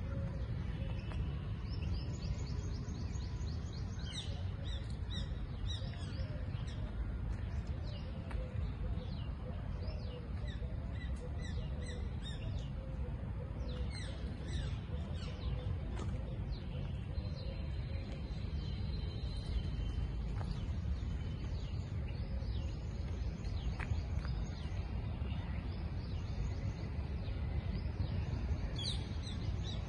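Small birds chirping, with many short high calls scattered throughout, over a steady low rumble.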